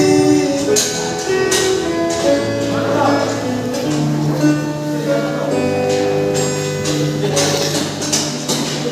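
A male street singer's voice with strummed acoustic guitar, a song performed live with sustained sung notes over a regular strumming beat.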